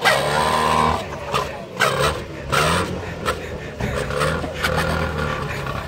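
Trabant's two-cylinder two-stroke engine running through an experimental expansion-chamber exhaust, revving up and dropping back several times in quick succession before holding a steadier pitch.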